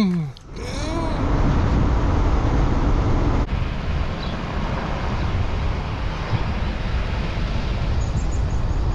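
A car driving along a road, heard through a camera mounted on its exterior: a steady rush of wind and road noise.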